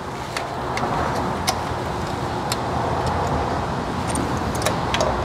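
Scattered sharp metallic clicks from a hand ratchet and socket extension turning a thermostat-housing bolt, about seven in all at uneven intervals, over a steady low background rumble.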